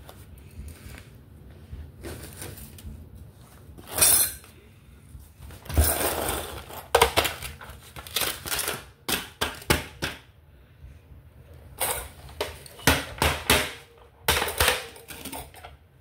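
Hands and toys working in play sand: a run of irregular short crunches, scrapes and taps, some close together and some a second or two apart.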